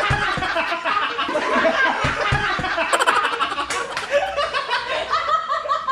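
A group of young men and women laughing hard together, with overlapping bursts of laughter from several people.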